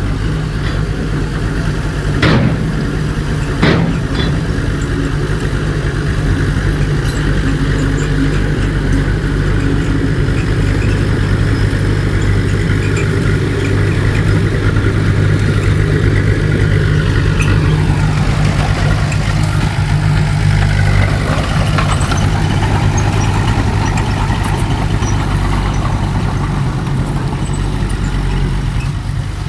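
Heavy diesel engine of earthmoving equipment running steadily, with two sharp metallic knocks about two and four seconds in.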